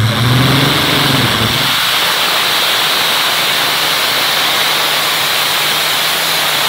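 The Rolls-Royce Griffon V12 aircraft engine of a pulling tractor at full power as it drags the weight sled down the track. It revs up over the first second or two, then runs loud and steady.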